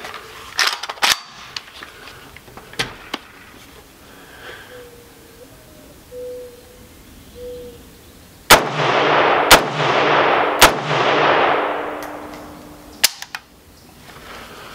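Three loud gunshots about a second apart, each a sharp crack, with a hiss that fades over the next few seconds; a few light clicks of handling come before them.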